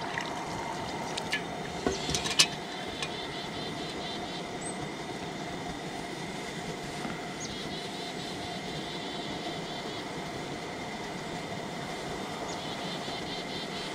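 A few sharp clinks of a metal cooking pot against a mug as hot water is poured out, the loudest about two and a half seconds in, over a steady rushing noise.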